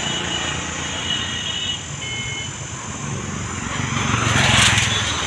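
Street traffic noise, with a passing motorbike swelling to its loudest about four and a half seconds in.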